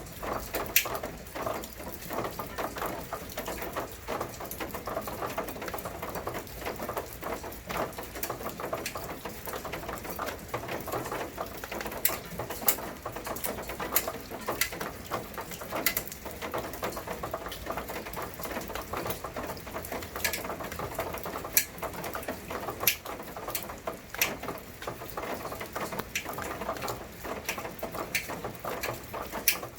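Rain pattering steadily, with sharper single drops striking hard surfaces at irregular moments, a few every couple of seconds.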